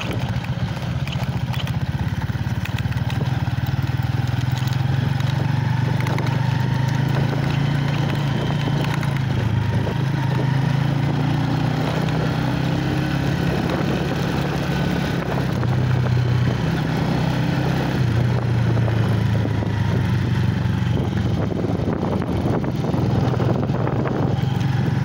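Motorcycle engine running steadily while riding along, its pitch dipping and rising again a few times as the throttle changes.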